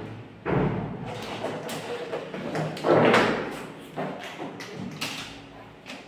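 Several thuds and knocks of a large cardboard-boxed refrigerator being gripped and shifted by hand, the loudest about three seconds in.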